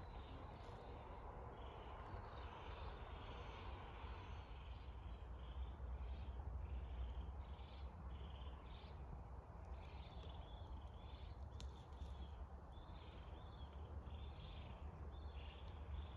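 Outdoor ambience: a steady low wind rumble on the microphone, with a run of short, high chirps repeating about once or twice a second, thickest in the second half.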